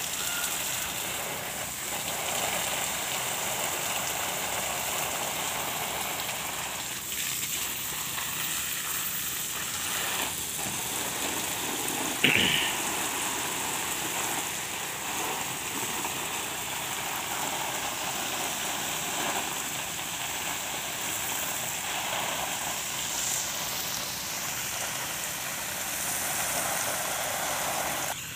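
Water spraying from a garden hose onto banana plants and the leaf-littered ground, a steady hiss of spray washing dust off the leaves. One short sharp knock stands out about twelve seconds in.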